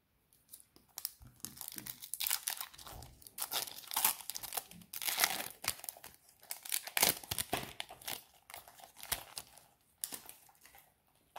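Foil wrapper of a Pokémon TCG booster pack crinkling in the hands in a run of crackling bursts as the pack is opened, dying down near the end.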